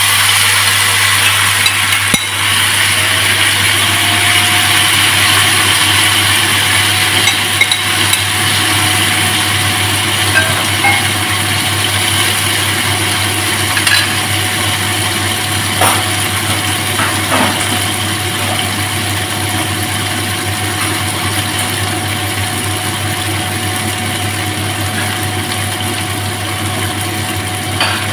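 Marinated chicken strips frying in hot oil in a grill pan, a steady sizzle, over a steady low hum. A few light clicks of a spatula against the pan come in the second half.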